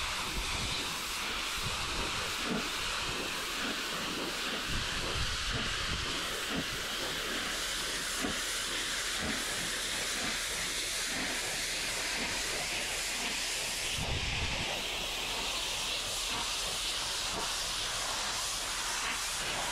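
Pressure-washer lance spraying a wooden fence: a steady hiss of the water jet striking the boards as it strips off algae.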